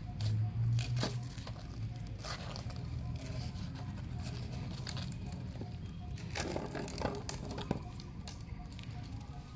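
A cat scuffling and pawing around a plastic pipe on a concrete floor strewn with dry leaves: scattered light crackles and taps, with a cluster of them about six and a half seconds in, over a low steady rumble.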